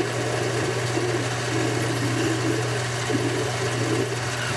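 Boxford metal lathe running steadily with a low hum while a 7 mm twist drill in the tailstock drills into the end of a spinning aluminium bar, with an irregular cutting noise over the hum.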